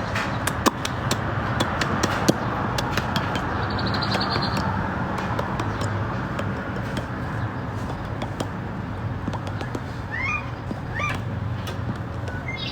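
Steady background noise with a low hum and scattered light clicks, and two short high-pitched animal calls about ten and eleven seconds in.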